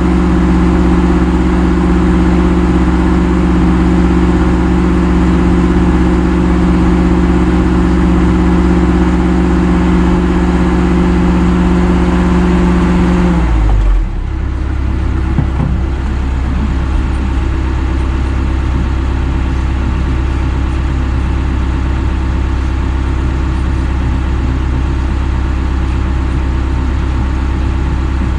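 Heavy equipment diesel engine running steadily at raised revs, then dropping to idle about fourteen seconds in and idling on.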